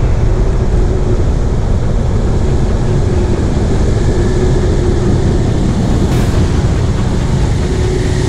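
Bass boat's outboard motor running steadily with the boat under way: a constant low rumble with a rushing noise over it.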